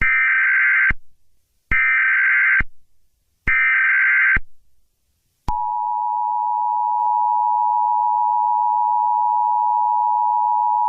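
Emergency Alert System tones: three short data bursts of the SAME header, each just under a second with a short pause between, then the steady two-tone attention signal, starting about five and a half seconds in.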